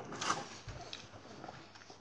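Quiet handling and eating noises of a donut being broken apart and eaten: a short rustle about a quarter second in, a soft thump, then faint small sounds.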